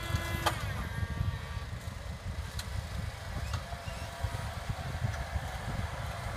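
Kubota M7171 tractor's four-cylinder turbodiesel running under a low, uneven rumble, its note sliding down about half a second in as the reversible plough is lifted and turned over at the headland.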